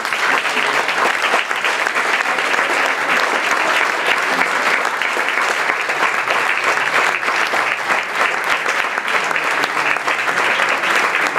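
Loud, steady applause from an audience clapping together.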